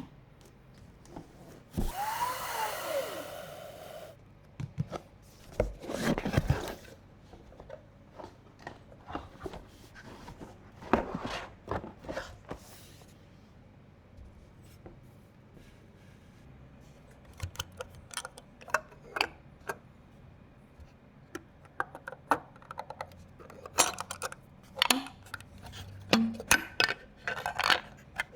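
PC parts and packaging being handled for a build: a two-second rasping scrape about two seconds in, a shorter scrape near six seconds, then many scattered light clicks, taps and knocks.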